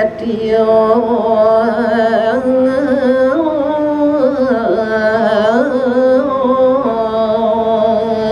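A man sings a verse of Balinese geguritan (tembang) solo into a microphone, in long held notes ornamented with wavering, bending runs of pitch.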